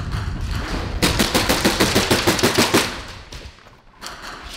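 HPA (compressed-air) airsoft gun firing a rapid string of shots, starting about a second in and lasting just under two seconds.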